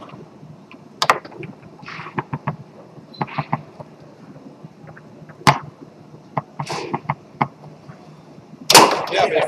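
Tornado foosball table in play: irregular sharp clacks of the ball being struck by the plastic men and hitting the table walls, with the rods knocking in between. The loudest, densest clatter comes near the end.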